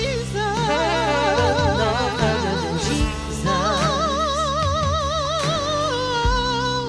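Closing music: long held melody notes with strong vibrato moving in two parts over a steady bass line and a few drum hits.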